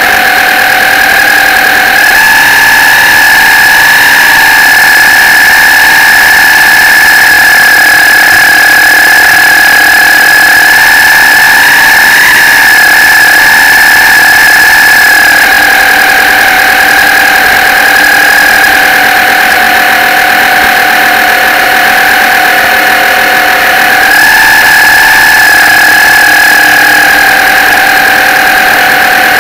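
Drive motor of an RC model pilot boat whining steadily and very loudly, picked up by a camera mounted on the boat's own deck. Its pitch sags a little in the middle and picks up again near the end as the speed changes.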